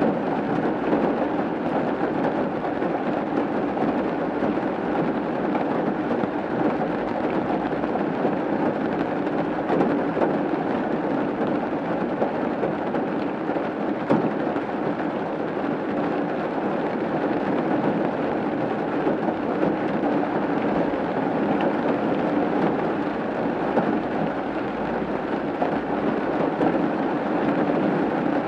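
Steady rain falling on a roof: a dense, even hiss of drops, with now and then a single louder drop hitting.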